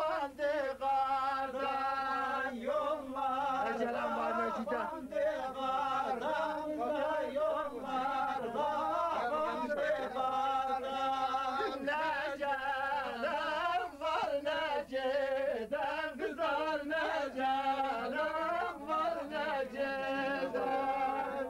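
Men singing together a Bayburt bar folk-dance song as they dance in a line, their voices rising and falling in a long continuous melody.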